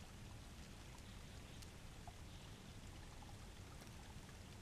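Near silence: faint, steady background hiss with no distinct sound.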